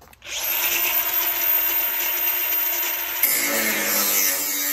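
Milwaukee cordless angle grinder spinning up with a rising high whine and running steadily, then biting into the steel tubing of an IBC tote cage about three seconds in, where a lower grinding tone joins the whine.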